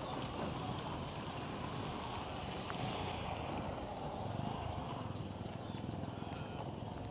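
Road traffic on an unpaved dirt road: a car driving away and a motorcycle approaching, heard as a steady mix of engine and tyre noise.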